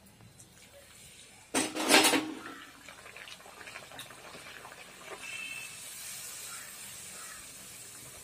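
A rolled puri dropped into hot oil in a kadai: a sudden loud burst of sizzling about a second and a half in, settling into steady hissing and crackling as it deep-fries.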